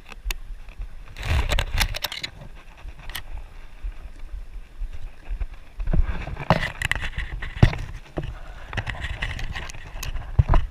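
Irregular handling noise close to a body-worn camera's microphone: rustling and knocks in several clusters, with a few sharp clicks and a low rumble of wind buffeting, as a freshly caught fish is handled and put away.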